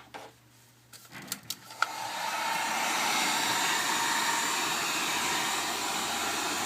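A few light clicks, then a heat gun is switched on about two seconds in and blows steadily on high, a smooth rushing air noise, as it heats a phone board to melt the solder on a USB charging port.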